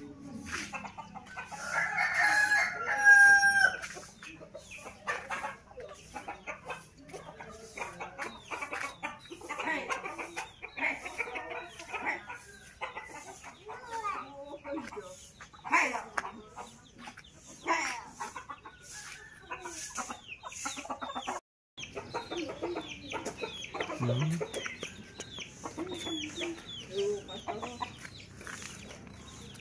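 A rooster crowing once, loud, about two seconds in, ending on a held note, followed by many short, scattered calls and sounds from the surroundings. The sound drops out for a moment about 21 seconds in.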